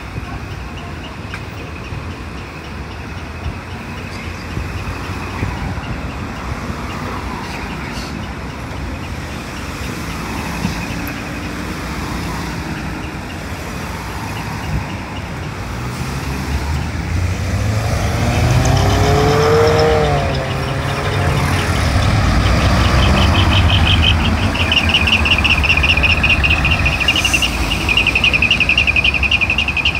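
Diesel dump truck with a manifold cut-out (mani-wari) exhaust, idling and then pulling away, getting louder a little past halfway, with the engine note rising and falling as it revs.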